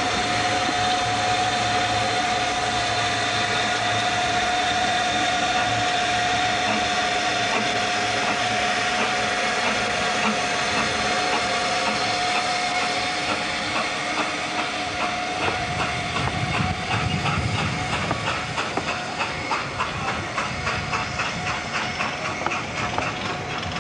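Ffestiniog Railway narrow-gauge steam locomotive hissing steam steadily, with a held whistling tone in the hiss. About two-thirds of the way through, the train pulls away and a rhythmic clatter starts that quickens as it gathers speed and the carriages roll past.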